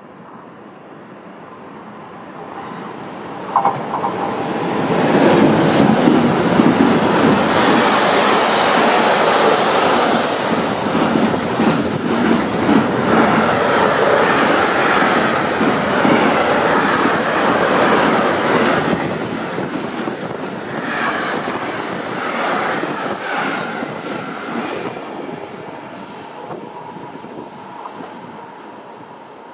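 Electric freight train of intermodal container wagons passing through at speed, its wheels clattering over the rails. A brief sharp sound comes about three and a half seconds in as it arrives; the noise then stays loud for about fifteen seconds and fades as the train draws away.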